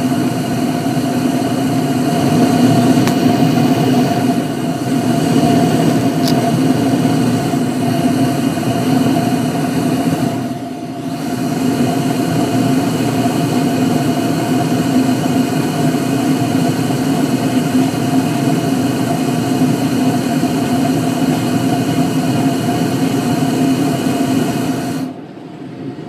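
York gas furnace running with its burners lit: a loud, steady hum and rush from the burners and fan, which drops away sharply about a second before the end.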